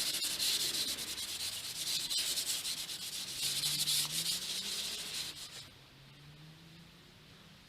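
Sandpaper rubbed by hand over painted wood in rapid scraping strokes, stopping about two-thirds of the way through.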